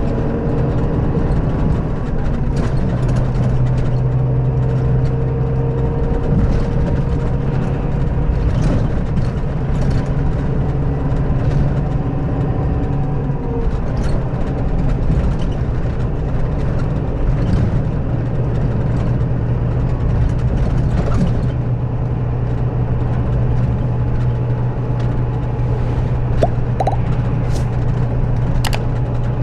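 Scania K400B bus's diesel engine idling steadily, a low even hum with no revving.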